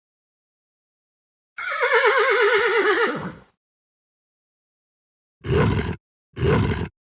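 A horse whinnying: one quavering call of about two seconds that falls in pitch. Near the end come two short, deep animal calls about a second apart.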